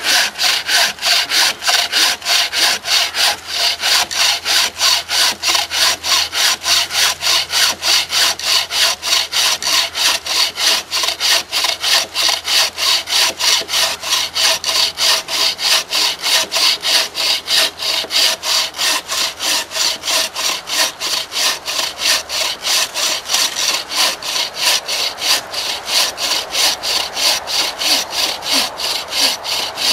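Wooden-framed bucksaw cutting through a firewood log: a steady back-and-forth rasp of the blade in the kerf at about three strokes a second.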